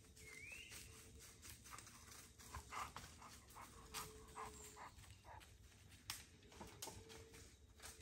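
Faint crackling footsteps and rustling on the forest floor as dogs move about and sniff. Near the start comes one short rising bird chirp.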